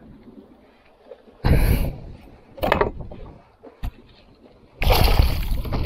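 Water splashing in short bursts beside a kayak, then a longer, louder stretch of splashing near the end, as a hooked fish is fought at the surface.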